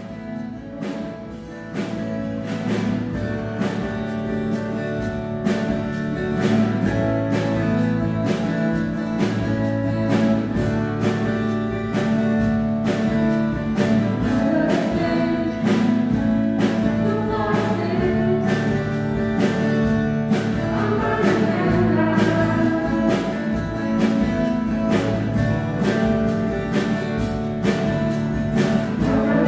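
A worship song played by a small band with a steady beat and held chords, with singing voices.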